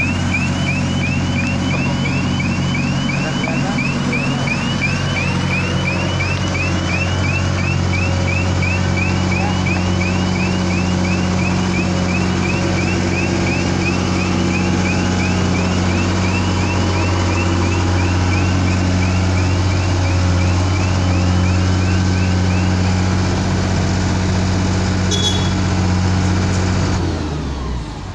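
Wirtgen W 1000 cold milling machine's diesel engine running steadily under load while milling off asphalt, with a chirping warning alarm repeating about two and a half times a second that stops a few seconds before the end. Near the end the engine's hum drops away.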